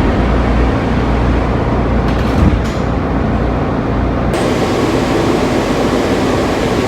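Steady running rumble heard from inside a Washington Metrorail car with the doors shut, with a single knock about two and a half seconds in. A little past halfway the noise changes abruptly to a lighter hiss with less low rumble.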